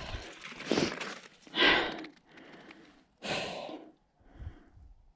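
A person breathing hard from the effort of cross-country skiing: four heavy, hissing breaths about a second apart, the last one fainter.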